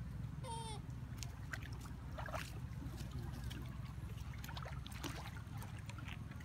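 Monkeys splashing and sloshing in pond water as they swim and clamber onto a floating log, with scattered small splashes over a steady low rumble. A short pitched call sounds about half a second in.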